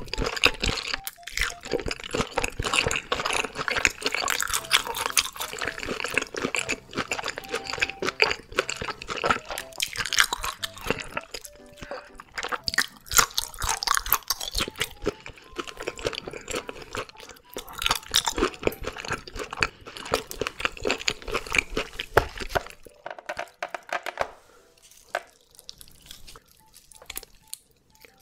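Close-miked chewing of red sea bream: dense, wet, clicky mouth sounds with light crunches. The chewing goes quieter about three-quarters of the way through, leaving soft sparse clicks as the grilled fish is pulled apart with chopsticks.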